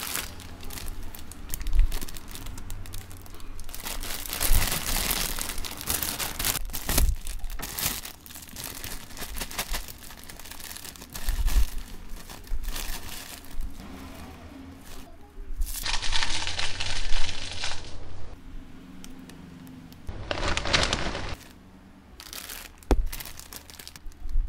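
Plastic potato chip bags being handled, crinkling and rustling throughout, with occasional dull knocks and two longer, denser stretches of crackling, one about two-thirds of the way through and one near the end.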